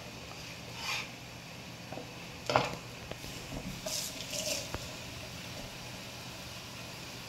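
Kitchen work sounds over a steady low hum: a brief scrape or rustle, then one sharp clatter of cookware about two and a half seconds in, then a couple of short hissing scrapes and a light click.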